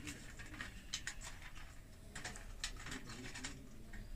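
Faint, scattered light clicks and taps of small hardware being handled as thimble connectors are worked off the terminals of an electric heater's element rod.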